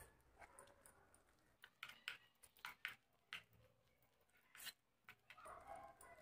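Faint, irregular clicks and scrapes of a spoon against the bowl as gram-flour batter is stirred.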